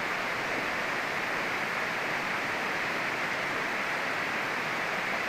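Fast river water rushing over boulders, a steady, even rush.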